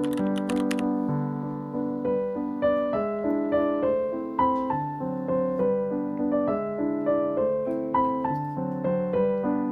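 Background music: a gentle piano piece playing a steady sequence of notes, with a few light clicks in the first second.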